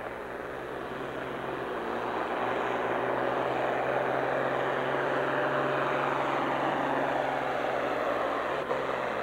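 Farm stock diesel tractor pulling a weight-transfer sled under full load. The engine gets louder over the first few seconds as the pull gets going, then holds steady.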